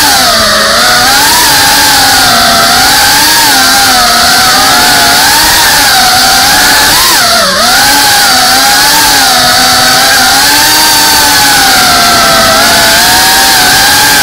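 FPV quadcopter's brushless motors and propellers whining loud and close from the onboard camera, the pitch wavering up and down constantly with the throttle. About halfway through the whine dips sharply and then climbs back.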